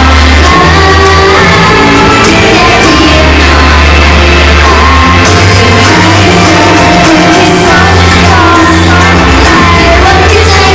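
Loud idol-pop song over a concert PA system, heavy bass under a female vocal line, with fans shouting cheers along with the music.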